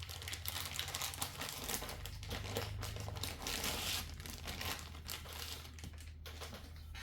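Packaging crinkling and rustling in quick irregular crackles as a new tool tray is handled and unwrapped, over a steady low hum.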